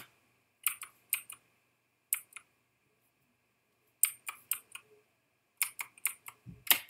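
Keys typed on a computer keyboard: sharp key clicks in short, uneven clusters with pauses between them, as words are pecked out letter by letter. A faint steady high tone sits underneath.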